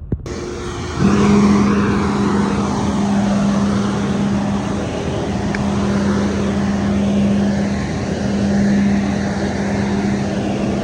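Car driving at a steady pace: constant road and wind noise with a steady low hum that comes in about a second in.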